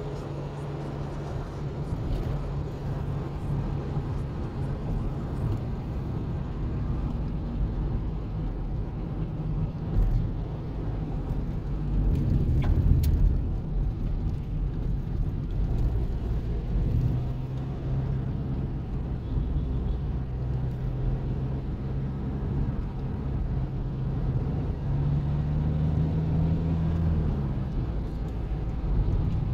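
Car engine and road noise heard from inside the cabin while driving at low speed: a steady hum whose engine note steps up and down a few times.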